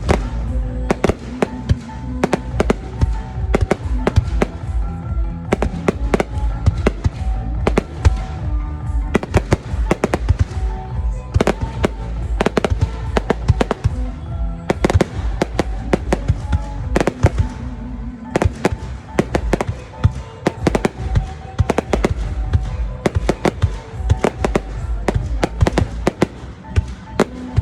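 Fireworks going off in a dense, irregular string of sharp bangs, several a second at times, with music playing underneath.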